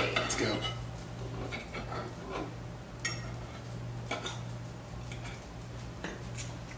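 Forks clinking and scraping against plates while enchiladas are cut into and scooped up, with a few scattered sharp taps over a steady low hum.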